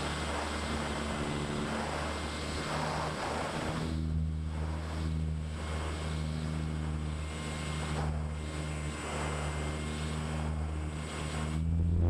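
Propeller motor of a small fixed-wing FPV model plane running steadily in flight, with air rushing over the onboard camera's microphone.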